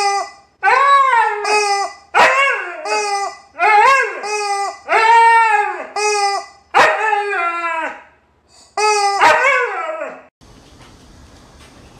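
A rubber chicken toy squawking in flat, buzzing calls, alternating with a Siberian husky howling back in arching, rising-and-falling calls. There are about nine calls in turn, stopping about ten seconds in.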